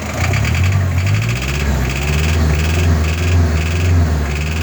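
Mazda WL-T 2.5-litre turbo-diesel engine running at raised revs with a low steady drone, and a higher-pitched noise cutting in and out about twice a second. This is the engine noise whose cause the owner is asking mechanics to diagnose.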